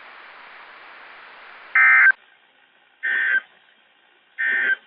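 NOAA Weather Radio broadcast hiss, then three short bursts of warbling digital data tones about a second apart, the first the loudest: the SAME end-of-message code that closes an alert, here the Required Weekly Test.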